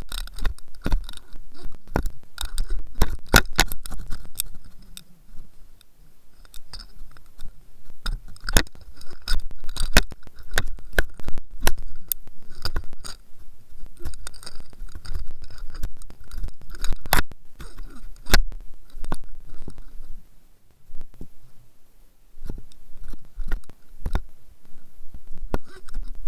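Irregular clicking and crackling, several clicks a second, thinning out near the end, over a steady low rumble. The sound is picked up from inside an underwater camera housing as the housing and rig knock and shift at depth.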